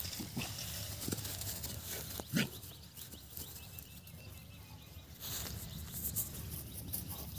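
Brindle bull mastiff making three short grunts in the first couple of seconds as it plays, then rustling noise from about the middle on.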